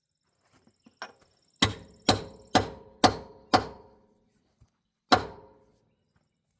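Hammer blows on a heated bolt stuck in a steel tractor wheel rim. There is a light tap, then five hard, ringing strikes about two a second, then one more a second and a half later. The bolt is not budging.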